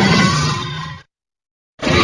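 Monster sound effect built from Mothra's cries: a harsh, rough creature call that fades and cuts off about a second in, followed by a short silence and the start of another call just before the end.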